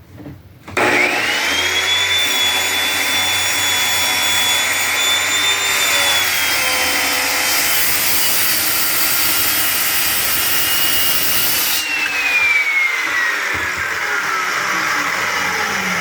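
Circular saw starting about a second in with a rising whine, running under load while cutting a dado in a board, then switched off near twelve seconds and winding down with a long falling whine.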